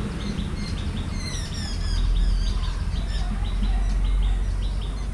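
Birds chirping, many short chirps repeating in quick succession with a few higher trills, over a low steady rumble.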